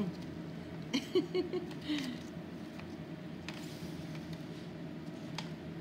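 Steady low hum under a brief murmured voice about a second in, then two faint clicks as chopsticks set fried wontons down on a ceramic plate.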